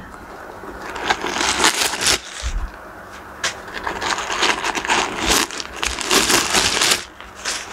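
Crinkly white plastic packing being pulled out of a handbag's main compartment, rustling in two bouts of crackling about a second in and again from about three and a half seconds to near the end.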